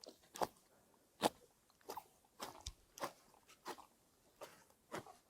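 Freshly caught bream and ide, still alive, flopping and slapping: a string of short sharp crackles and slaps at an irregular pace, roughly one or two a second.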